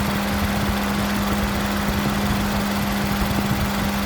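2014 Ford Escape's turbocharged 1.6-litre four-cylinder engine idling with a steady hum. Its turbo wastegate is sticking.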